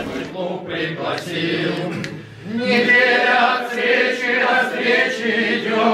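A mixed group of amateur men's and women's voices singing the club anthem in Russian together, coming in about two and a half seconds in after a moment of talk.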